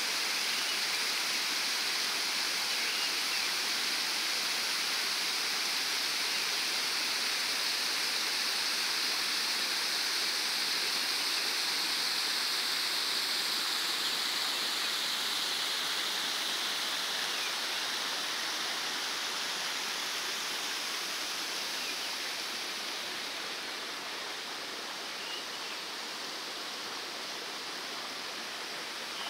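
Small waterfall pouring into a pool: a steady rush of falling water that eases a little past halfway.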